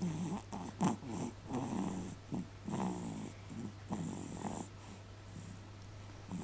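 Newborn baby making short throaty grunting noises while bottle-feeding, several in the first four and a half seconds, then quieter.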